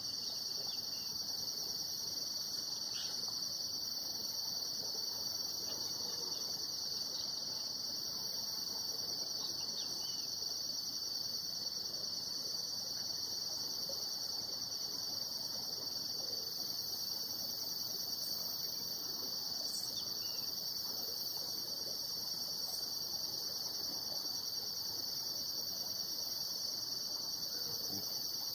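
Steady chorus of insects trilling continuously at a high pitch, with a fine rapid pulsing.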